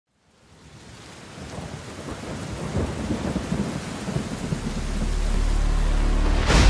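Rain and thunder fading in from silence: a steady rain hiss with rolling thunder, a deep rumble building about two-thirds of the way through, then a sharp thunderclap near the end.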